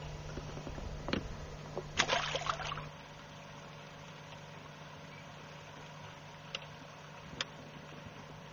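Quiet ambience on a fishing boat on the water: a low steady hum that stops about three seconds in, a short noisy rush around two seconds, and a couple of faint clicks near the end.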